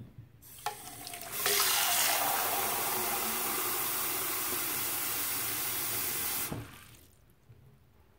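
Bathroom faucet running into a clear plastic water flosser reservoir, filling it with water. The flow starts about half a second in, runs steadily, and is shut off about six and a half seconds in.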